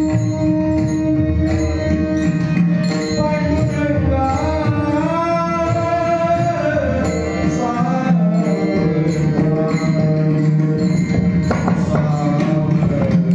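A male voice sings a Marathi devotional song with long gliding melodic runs, accompanied by a mridang drum and jingling percussion over a steady drone.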